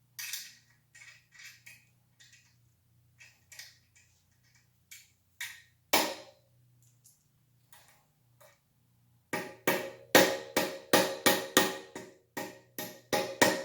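Hammer blows driving a tight-fitting part into a motorized bicycle frame. Scattered light taps at first, then from about nine seconds in a fast run of heavier blows, about three a second, each with a metallic ring.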